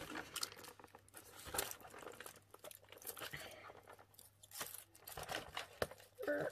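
Cardboard advent calendar being handled and a small gift from it unwrapped: quiet rustling and crinkling of paper and packaging with scattered light taps and clicks.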